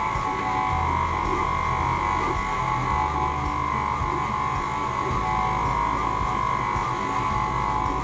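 Stand mixer running steadily, its beater turning through thick royal icing (powdered sugar, dried egg-white mix and water) in a glass bowl, with a steady motor whine.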